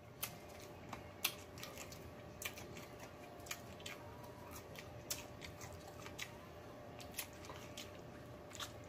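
Close-up eating sounds: a person chewing fried chicken and gnawing gristle off a chicken leg bone, with wet lip smacks and irregular short, sharp clicks.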